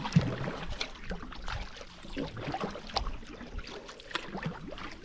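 Canoe paddling: irregular paddle splashes and drips in the water, with scattered light knocks against the canoe.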